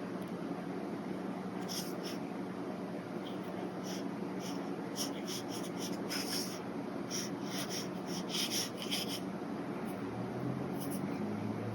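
Brush pen stroking across paper: a string of short brushing strokes, most of them in the middle stretch, over a steady low hum.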